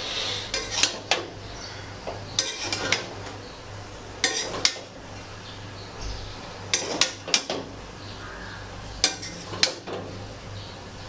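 Steel spatula scraping and clinking against a steel kadhai while stirring flattened rice with peas. It comes in about five short bouts of clatter a couple of seconds apart.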